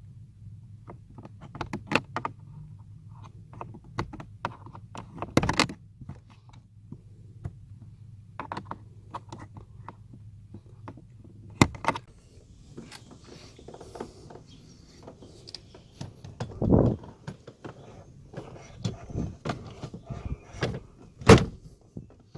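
Irregular clicks, taps and knocks from handling the cabin air filter housing behind the glove box: its plastic lid is worked with a flathead screwdriver and the filter is fitted. A few louder thunks stand out.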